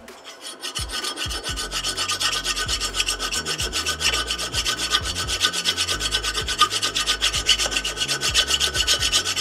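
Hand file rasping back and forth over a heavy copper fitting in quick, even strokes, building over the first second or two. It is test-filing to bare metal to tell copper from brass.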